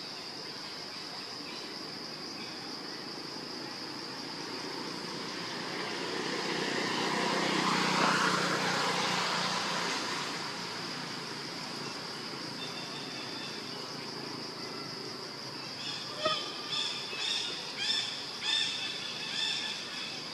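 Steady high-pitched insect drone of a tropical woodland. A broad rush of noise swells and fades around the middle, and near the end come about six short, high calls in quick succession.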